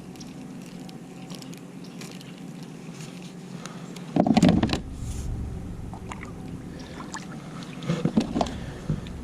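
Handling noises from a person in a kayak on the water: light knocks and clicks over a low background, with one loud thump about four seconds in and a quick run of clicks near the end.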